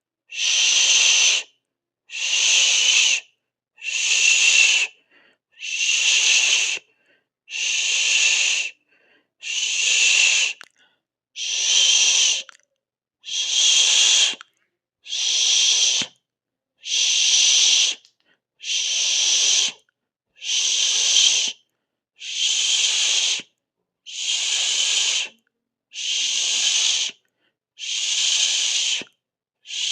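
A person making a long 'shhh' hiss with the mouth, over and over in a steady rhythm: about one hiss every second and three quarters, each lasting about a second and a half, with a short silent gap between.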